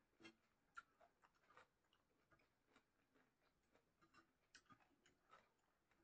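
Near silence broken by faint, irregular mouth clicks and smacks of someone chewing a meal, a dozen or so small ticks spread unevenly, a couple of slightly louder ones near the start.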